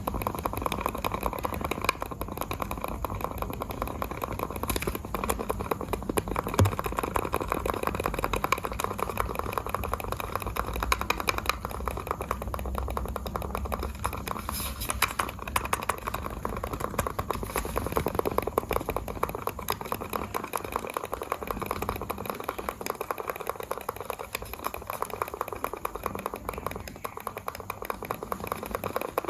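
Computer mouse buttons clicking rapidly and continuously, many clicks a second.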